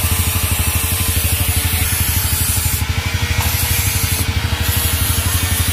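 Honda CRF150's single-cylinder four-stroke engine idling through a fabricated stainless-steel muffler, with a loud, steady, rapid exhaust pulse.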